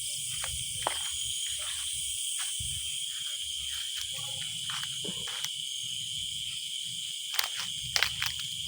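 Steady chorus of crickets and other insects, a high, even drone, over a low rumbling noise, with a few sharp clicks near the end.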